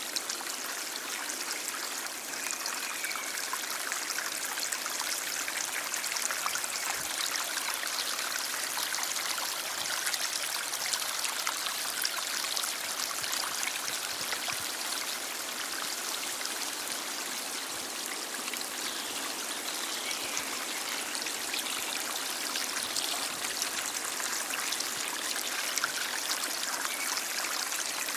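Stream water flowing steadily over rocks, a continuous rushing trickle with fine splashing and little low rumble.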